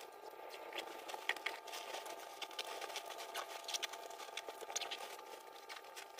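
Faint rustling of a nylon board bag and the gear inside it being handled and pressed down, with scattered light clicks and ticks. A faint steady hum runs underneath.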